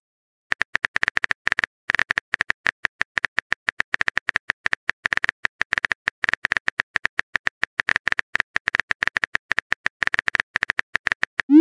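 Simulated phone-keyboard typing sound effect: a quick, uneven run of short key clicks, several a second, with a brief pause about two seconds in.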